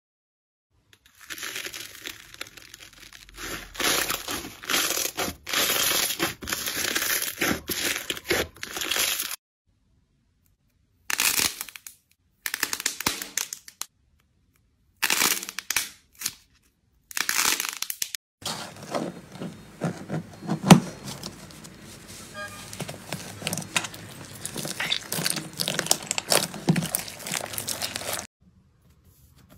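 Hands squeezing and kneading glossy slime, making dense runs of small clicks and pops. It comes in several separate bursts of handling with short silent gaps between them.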